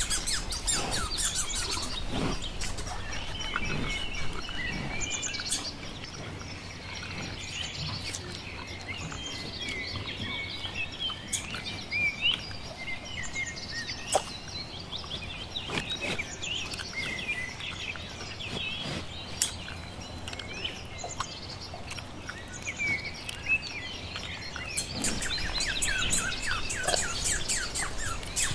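Birds chirping and twittering in short high calls, joined at the start and again near the end by bursts of fast, rapid clicking chatter.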